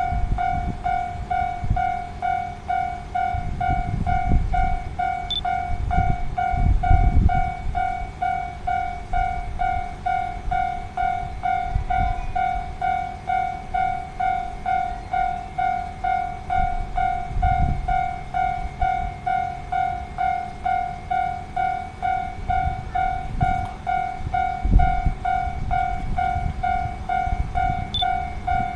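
Japanese level-crossing alarm bell ringing steadily at about two strokes a second. Irregular low rumbling lies underneath.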